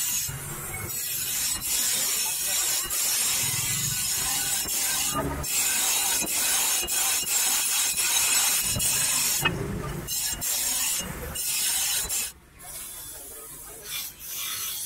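Bench grinder's abrasive wheel grinding a steel knife blade: a steady high hiss of steel on stone. It breaks off sharply about twelve seconds in and again briefly near the end, as the blade is lifted from the wheel.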